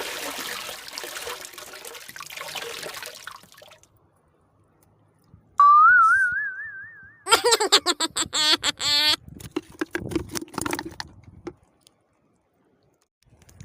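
Water splashing for about four seconds, then after a short pause a loud whistle-like tone that warbles up and down, followed by a few seconds of busy warbling, wavering sound effects.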